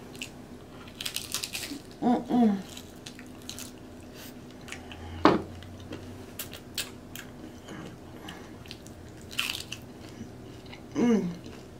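Close-up crunching and chewing of cheese-sauce-covered tortilla chips (nachos): bites that crack, with smaller crunches and wet chewing between them, and a few brief hums of voice.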